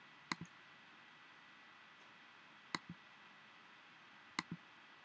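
Computer mouse clicked three times, each a sharp press click followed by a softer release click, over faint steady hiss.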